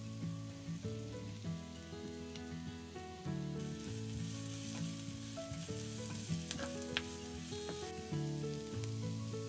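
Cubed eggplant, grated carrot and red onion sizzling as they fry in oil in a non-stick frying pan, the sizzle growing fuller a few seconds in, with a couple of sharp clicks near the end. Gentle background music plays throughout.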